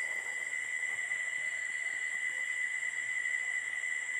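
Faint background noise between sentences: a steady high-pitched tone over a low hiss.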